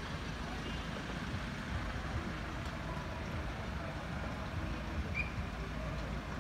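Steady low rumble with a hiss over it, even throughout and with no distinct event; a brief high chirp about five seconds in.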